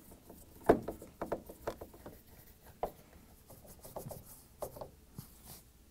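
Phillips screwdriver fastening screws into a refrigerator's bottom front grille: a string of small clicks and scrapes, the sharpest about a second in.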